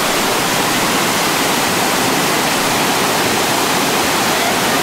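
Whitewater pouring over a river waterfall and churning at its foot, a loud, steady, even rush of water.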